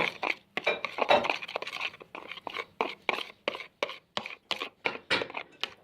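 A spoon stirring a glue-and-water slime mixture in a container, scraping and clicking against the sides in quick, irregular strokes.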